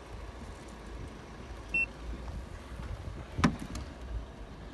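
A UNI-T UT343D coating thickness gauge gives one short, high electronic beep about two seconds in as it registers a paint-thickness reading on a car body panel. About a second and a half later there is a single sharp knock, the loudest sound.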